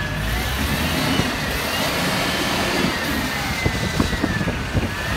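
5-ton diesel forklift engine running as the truck drives, with a thin high whine that rises and falls in pitch. Several sharp knocks and clatters come in the second half.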